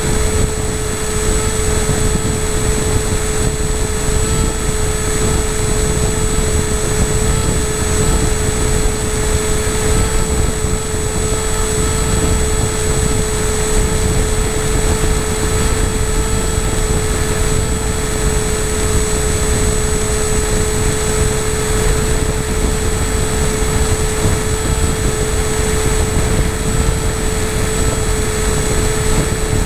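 FPV model aircraft's motor and propeller running at a steady, unchanging pitch, a constant whine, picked up by the onboard camera over heavy wind rumble.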